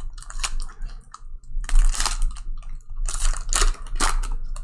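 Foil trading-card pack wrapper crinkling and rustling as a pack is opened and its cards handled, in uneven spurts of crackly noise.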